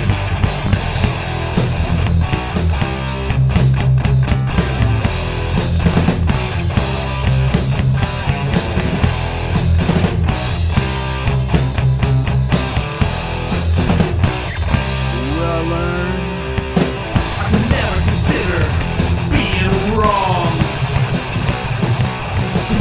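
Instrumental passage of a loud rock/metal song played by a full band: drums, bass and electric guitar. Sliding pitches come through in the last few seconds.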